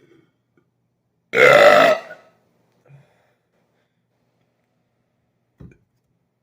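A man's single loud burp, lasting under a second, about a second and a half in. It is brought up on command from the stomach, without any drink beforehand.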